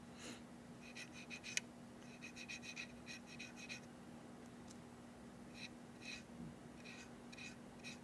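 Faint, scratchy strokes of a micro brush rubbing weathering chalk along the ribbed side of a model freight car: two quick runs of strokes in the first four seconds, then, after a pause, single strokes about every half second. A low steady hum sits underneath.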